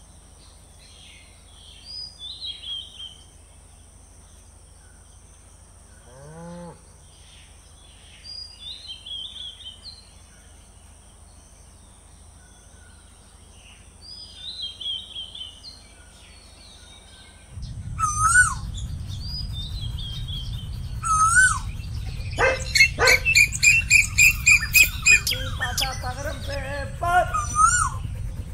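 Birds chirping and calling over a steady, faint high-pitched whine. About two-thirds of the way in, a low rumble comes in and the birdsong grows louder and busier, with a run of quick repeated notes near the end.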